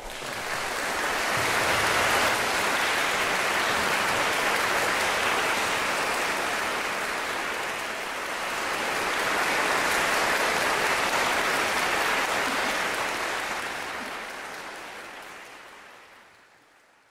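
Audience applauding after the final chord, a dense steady clapping that dips briefly about halfway through, then fades away over the last few seconds.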